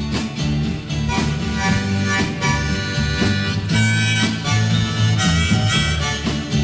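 Harmonica playing an instrumental break over strummed guitar, bass and a steady drum beat in a mid-1960s folk-rock song.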